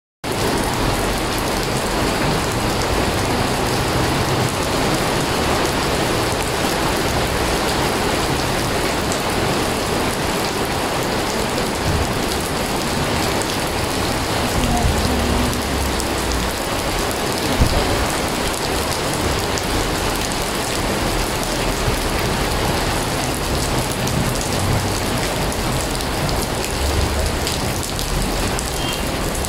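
Heavy rain falling steadily onto flooded pavement, the drops splashing into standing water.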